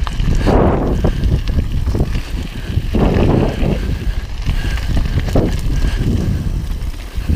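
Wind buffeting a helmet-mounted camera's microphone as a mountain bike rolls down a loose gravel trail, with rushes of tyre noise on the gravel surging about half a second in and again around three seconds in, and a few short knocks from the bike over bumps.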